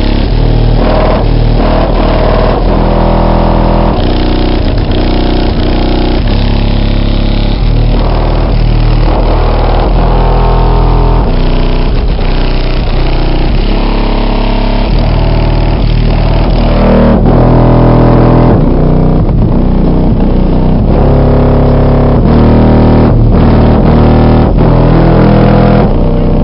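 Bass-heavy music played very loud through a wall of eight 12-inch Pioneer Premier TS-W3002SPL subwoofers powered by two 1200 W RMS Pioneer Premier amps, with deep bass notes that change every second or so.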